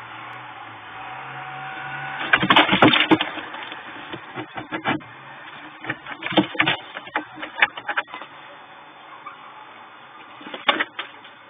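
Birds scrabbling and flapping their wings on the gritty floor of a nest box, in short scratchy flurries: a loud one a couple of seconds in, several shorter ones after it, and a last one near the end.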